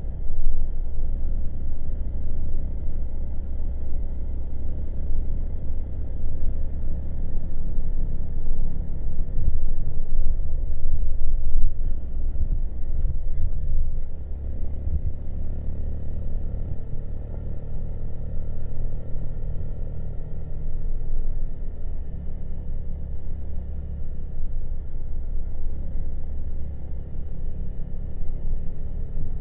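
Honda Monkey's single-cylinder four-stroke engine running steadily under way at cruising speed, heard from on the bike, swelling for a few seconds around the middle before easing back.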